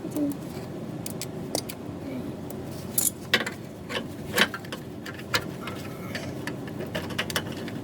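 Metal hand tools clinking: sockets and a wrench knocking together as they are handled, in irregular sharp clicks, the loudest a few seconds in.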